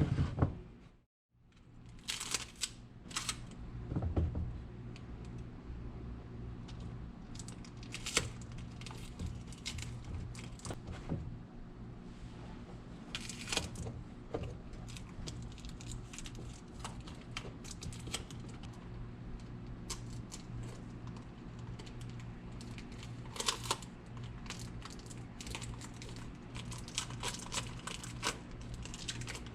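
Hand-working sounds of a soccer boot lining repair: irregular crinkling, tearing and light clicking of material being handled, over a steady low hum.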